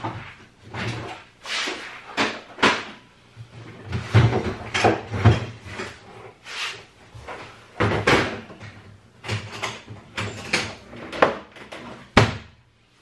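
Rummaging for a tool kit: irregular knocks, clatters and scrapes of tools and storage being handled and moved, about a dozen sharp knocks with a hard one near the end.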